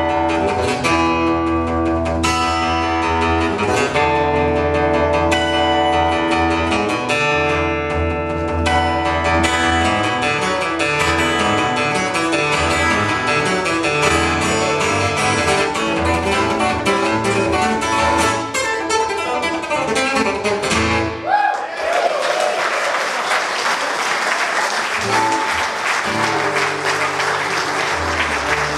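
Fingerstyle acoustic guitar playing a country chicken-pickin' tune. The playing ends about 21 seconds in, and an audience breaks into applause.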